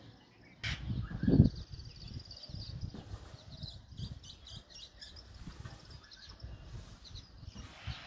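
Common mynas calling in short, high chirps and chatter. A sharp click comes just under a second in, and a loud low thump follows about a second and a half in.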